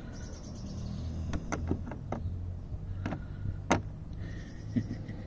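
Sharp clicks and knocks of the tailgate's broken strut-bracket parts being handled and fitted together: a quick cluster about a second in, then single knocks, the loudest a little past halfway. A low steady hum runs underneath.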